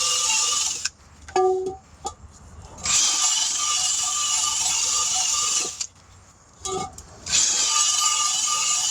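Handheld rotary power tool running in bursts: it stops about a second in, runs again for about three seconds, then starts once more near the end, with a slightly wavering whine as it works. A few clicks and knocks fall in the gaps between runs.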